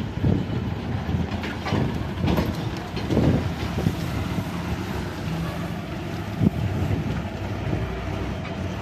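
Diesel engine of a TSRTC Super Luxury bus running as the bus turns and pulls away: a steady low drone with irregular rattles and knocks over it, and one sharper knock late on.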